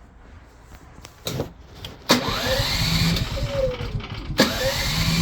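Predator 9500 Super Quiet generator, with its carbon-monoxide shutdown sensor jumped out, starting abruptly about two seconds in and running. A rising whine comes as it spins up. The sound breaks off about two seconds later and starts up the same way again.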